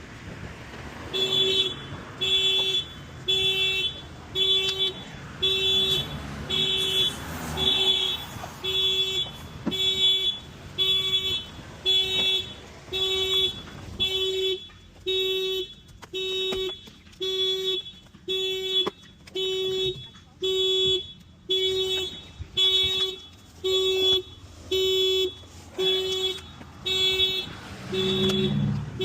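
A Honda's security alarm going off, sounding the car horn in steady pulses about once a second.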